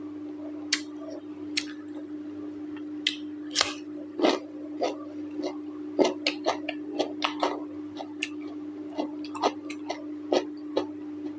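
A person chewing food close to the microphone: irregular wet smacks and clicks of the mouth, a few at first and then several a second from about four seconds in. A steady low hum runs underneath.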